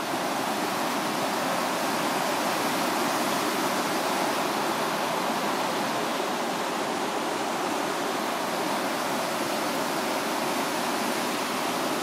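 River water rushing over a rocky waterfall, a loud, steady wash of noise that does not change.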